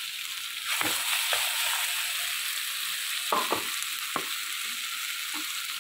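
Onions, tomatoes, green chillies and herbs sizzling in hot oil in a kadai while being sautéed, with a steady frying hiss. A wooden spatula knocks and scrapes against the pan several times as it stirs.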